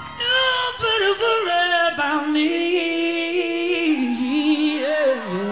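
Music: a pop-rock song with a singer holding long notes with vibrato over a full backing.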